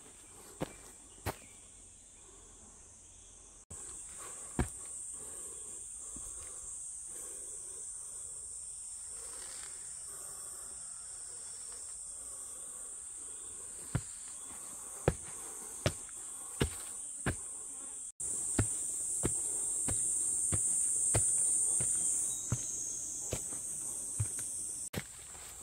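A steady, high-pitched chorus of summer insects, with a hiker's footsteps on a forest trail as sharp steps about once a second.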